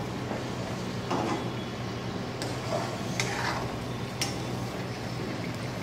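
Steel spoon scraping and knocking against a steel kadai as onion purée is stirred, several sharp metallic knocks about a second apart over a steady low hum.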